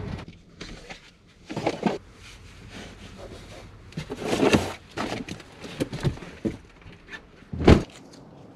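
Gear being handled in and around a pickup truck's cab: a string of knocks and rustles, the loudest a sharp thump near the end.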